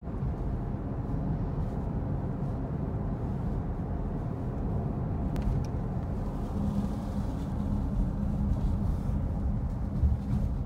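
Road noise inside a moving car: a steady low rumble of tyres and engine heard through the cabin.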